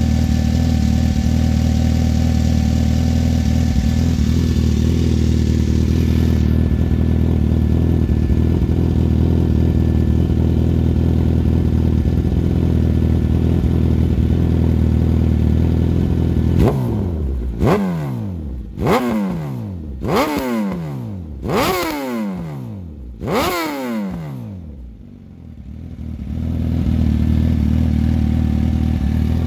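2018 Suzuki GSX-S1000's inline-four idling steadily through a full-system Hindle exhaust with a megaphone muffler. A little past halfway it is blipped about six times in quick succession, each rev shooting up and dropping straight back, before it settles back to idle near the end.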